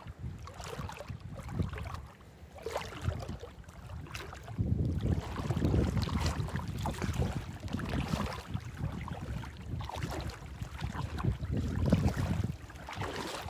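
Wind buffeting the microphone in uneven gusts, stronger from about four and a half seconds in, with small splashes and lapping of shallow bay water.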